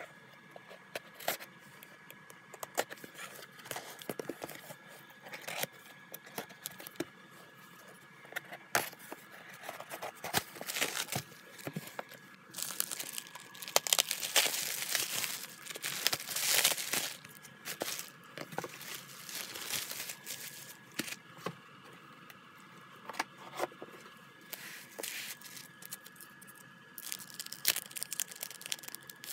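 Packaging being handled and opened: cardboard box flaps and bubble wrap rustling, crinkling and tearing, with many scattered clicks. The crinkling is densest and loudest about halfway through, as the bubble wrap is pulled away.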